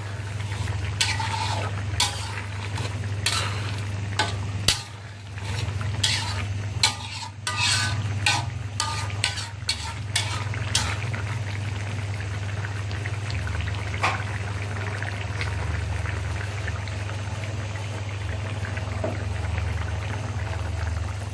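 A metal spoon stirring a simmering curry in a wok, clicking and scraping against the pan in quick strokes for about the first ten seconds. After that the curry bubbles and sizzles steadily, over a steady low hum.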